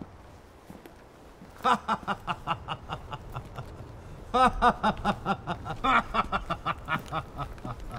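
A man laughing heartily in three bouts of quick, pulsed ha-ha-ha, each lasting one to two seconds.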